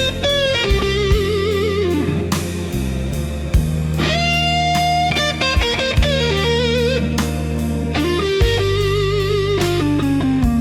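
Slow blues rock instrumental break: an electric lead guitar plays bending, vibrato-laden phrases over sustained bass and chords, with steady drum hits.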